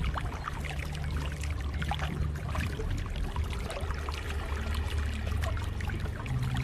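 Lake water splashing and trickling, a steady run of small splashes, with a low steady hum underneath that shifts slightly in pitch near the end.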